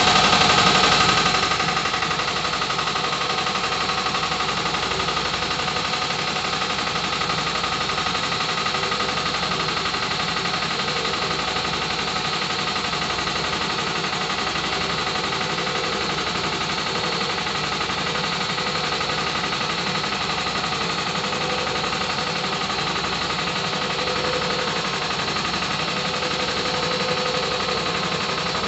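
50-year-old Champion belt-driven air compressor running: an electric motor drives the reciprocating pump in a fast, steady clatter. It is loudest for the first second or two, then settles to an even run.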